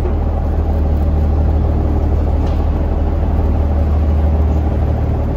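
Engine of a yakatabune sightseeing houseboat running steadily under way: a constant low drone.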